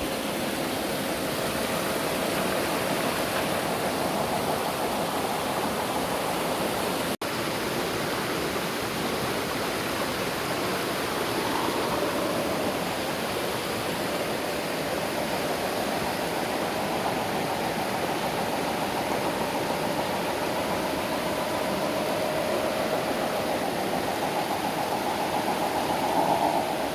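Rushing river water with the whine of a small RC crawler's electric motor and gears rising and falling over it. The sound drops out for an instant about seven seconds in.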